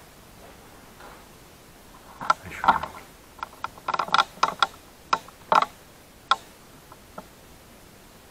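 Handling noise: an irregular run of sharp clicks and light knocks, about fifteen in five seconds, starting about two seconds in.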